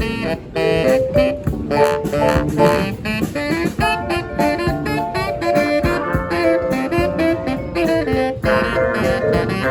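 Street brass band playing a tune: several horns sound together in changing notes over drums.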